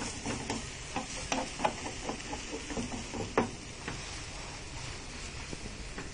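Vegetable omelet sizzling in a frying pan, with a plastic spatula scraping and tapping against the pan now and then; the sharpest tap comes about three and a half seconds in.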